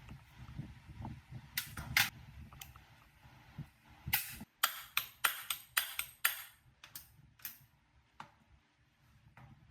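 A series of sharp clicks and knocks, about a dozen, bunched in two groups, over a low rumble that fades about halfway through.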